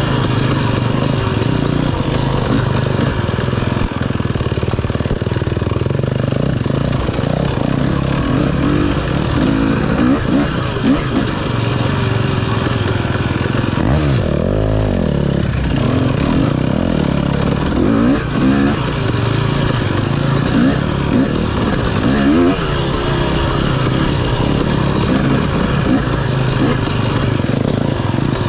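KTM 250 off-road dirt bike engine running hard, its pitch rising and falling with the throttle, easing off and picking back up about halfway through.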